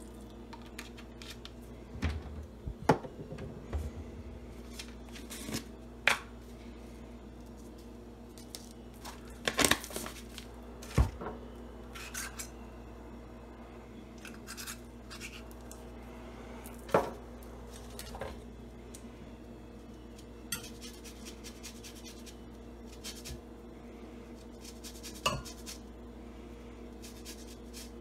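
Kitchen prep handling: a small bottle uncapped and capped, and bottles, jars and a glass measuring cup knocked down and moved on a counter, heard as scattered clicks and knocks, a few of them sharp, over a steady low hum.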